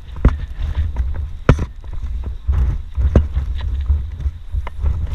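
Strong wind buffeting the microphone with a gusting low rumble, with scattered sharp clicks and knocks, the strongest about a second and a half and three seconds in.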